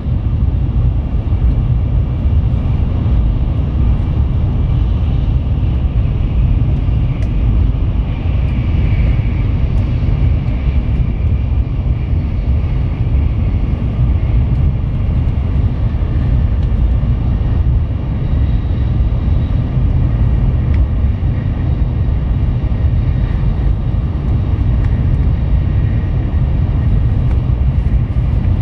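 Tokaido Shinkansen Nozomi running at speed, heard inside the passenger cabin: a deep, even rumble that holds steady throughout.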